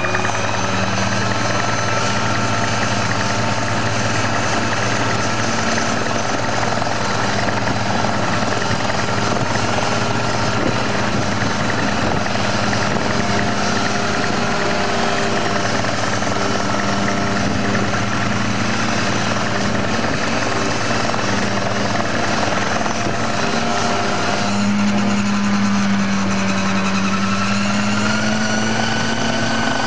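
Homemade single-seat helicopter running: its small piston engine and spinning rotor make a steady drone. About five seconds before the end the engine note steps up and then climbs gradually.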